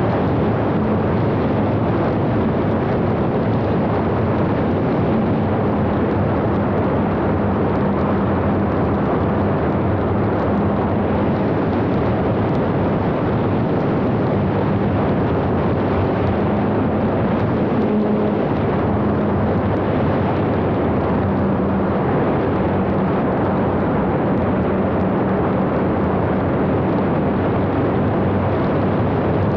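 Large radio-controlled model Avro Lancaster in flight, heard from on board the airframe: a steady rush of airflow and propeller noise with a low steady hum underneath.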